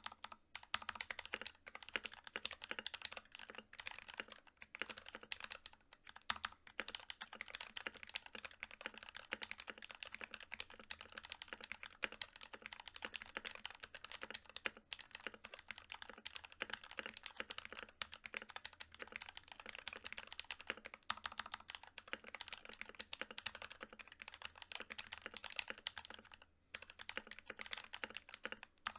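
Fast, continuous typing on an NK65 Milkshake Edition mechanical keyboard: NK_ Silk Yellow linear switches, factory-lubed, under PBT Cherry-profile keycaps, in a polycarbonate case with an aluminium plate. A dense stream of keystroke clicks with a few brief pauses.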